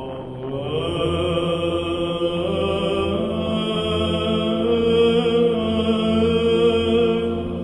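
Orthodox church chant: voices singing long-held notes over a steady low drone.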